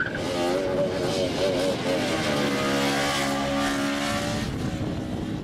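Motorcycle engine revving, its pitch wavering as the throttle is worked, then a long, even engine note that sinks slightly in pitch as the bike passes by.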